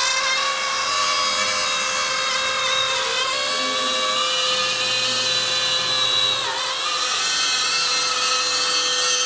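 Handheld Roto Zip drywall cutout tool (spiral saw) running at high speed, its bit cutting through a drywall sheet: a steady high whine with a brief dip in pitch about six and a half seconds in.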